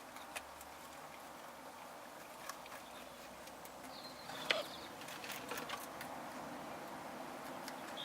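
A brief high squeak from the camera about halfway through, with a sharp click at its peak and another short squeak at the very end, over scattered faint clicks and a low steady hiss. The squeaking is the camera, not the rabbits.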